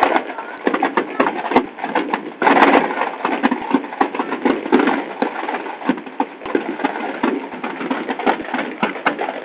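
Large bonfire burning with a steady rushing noise and dense, rapid crackling and popping.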